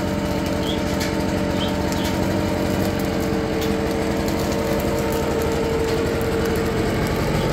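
Leaf blower running steadily at a constant speed, blowing air onto charcoal in a fire pit to fan it alight fast.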